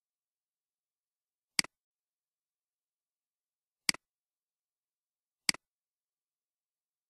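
Three sharp computer mouse clicks, each a quick press and release, spaced about two seconds apart, clicking through a slideshow.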